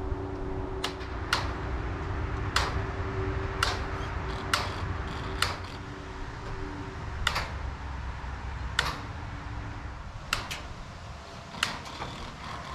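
A hand tool working the wire mesh on the wooden frame of a rabbit tractor: about a dozen sharp, separate metallic clicks, irregularly spaced roughly a second apart. A steady low hum runs underneath and fades out about seven seconds in.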